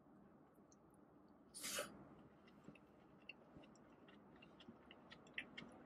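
Faint chewing of a mouthful of burrito bowl (rice, chicken, lettuce), with soft wet mouth clicks scattered throughout. A brief, louder rustling hiss comes about one and a half seconds in.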